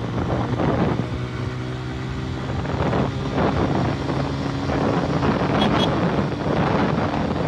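Suzuki 150 motorcycle's single-cylinder four-stroke engine running steadily under way, its note shifting slightly about four seconds in, with wind rushing over the microphone.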